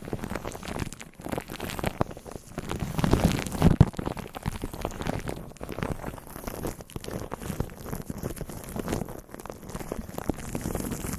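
Close-miked ASMR trigger noises: a dense run of small crackles and rustles, loudest about three to four seconds in.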